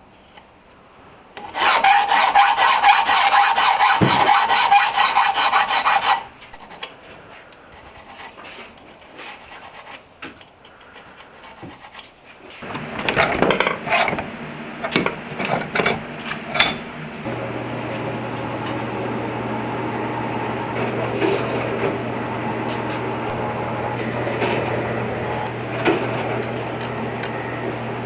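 Needle file rasping across the edge of an engraved brass plate clamped in a vise, in a loud run of strokes starting about a second and a half in and stopping suddenly about four seconds later. Scattered clicks and knocks follow, then a steady low hum from a little past the middle.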